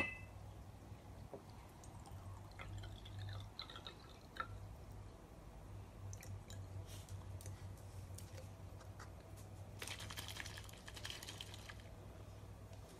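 Faint dripping and trickling of a little water in a white dish, with light handling clicks and two brief stretches of soft splashing, over a steady low hum.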